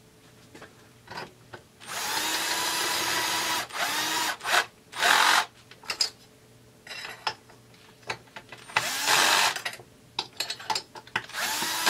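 Power drill/driver on a light torque setting running the cylinder head bolts of a Husqvarna 350 chainsaw down in several short bursts. The motor spins up and winds down each time; the first run, about two seconds in, is the longest, and small clicks fall between the runs.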